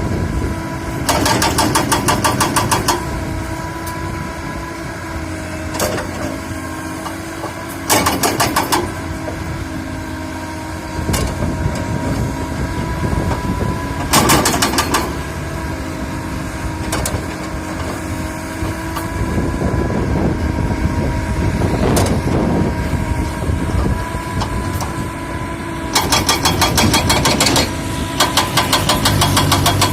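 Excavator's diesel engine running steadily with a hydraulic whine. Several times it is interrupted by one- to three-second bursts of rapid, evenly spaced metallic clattering, the longest near the end.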